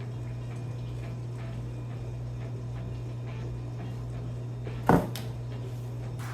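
Small hard parts being handled, with faint light taps and one sharp clack about five seconds in, over a steady low electrical hum.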